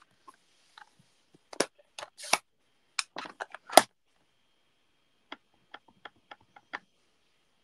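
Clear acrylic stamp block and ink pad handled on a craft desk. There are clicks and knocks, the loudest about four seconds in, then a quick run of about seven light taps as the stamp is dabbed onto the grey ink pad.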